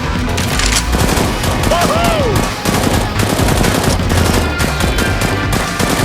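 Rapid automatic gunfire sound effects, a fast burst of shots starting about a second in, over background music.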